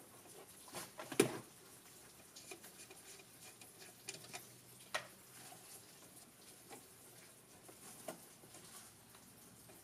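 Faint scattered clicks and light rustling as gloved hands handle wires and crimped terminals, with a sharper click about a second in and another about five seconds in.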